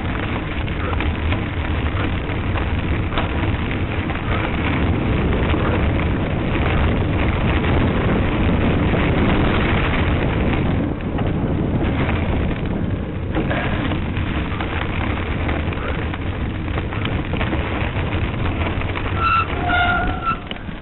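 Steady wind rush and rumble on the microphone of a camera moving along at riding speed. Near the end, a few short high-pitched tones sound.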